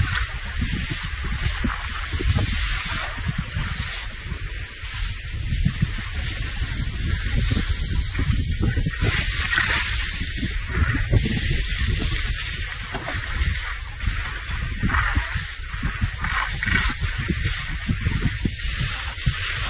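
Wind buffeting the microphone while skiing downhill, under a steady hiss and scrape of skis sliding on groomed snow that swells a couple of times.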